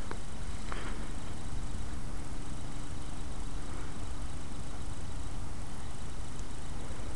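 Steady outdoor background noise, mostly a low rumble, with two faint clicks within the first second and a faint steady hum underneath for a few seconds.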